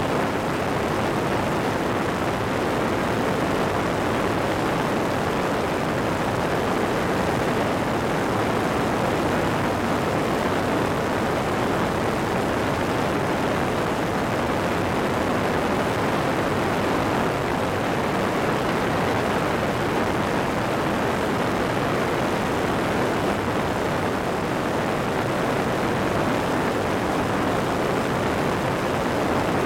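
Airborne weight-shift microlight trike in level flight: a steady rush of wind over the wing-mounted microphone mixed with the drone of its pusher-propeller engine, unchanging throughout.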